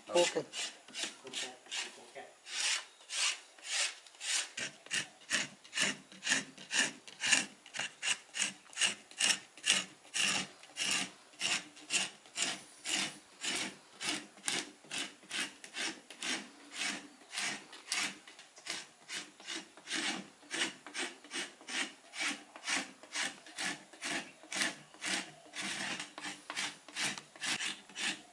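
A small knife scraping the outer bark off freshly cut cinnamon sticks in quick, even, rasping strokes, about two to three a second.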